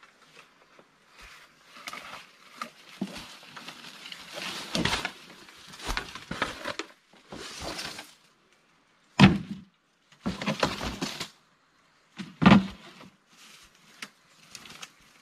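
Bamboo being chopped and worked by hand: irregular cracks, knocks and rustling, with the loudest blows about nine and twelve seconds in.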